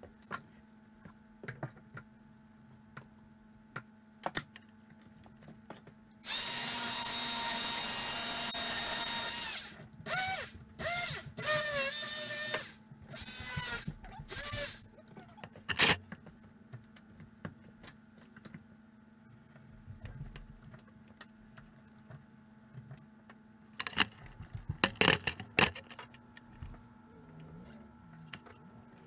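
Cordless drill running: one steady run of about three and a half seconds, then several short trigger pulses whose pitch rises and falls as the motor speeds up and slows down. Near the end, a quick cluster of sharp knocks.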